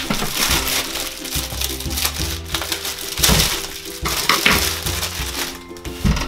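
Thin plastic produce bag crinkling and rustling in several bursts as potatoes are pulled out of it, the loudest a little past the middle, over background music.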